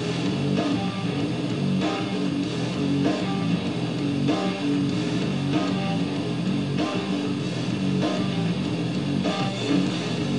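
Background music: a guitar-led track with a strummed chord pattern that repeats about every second.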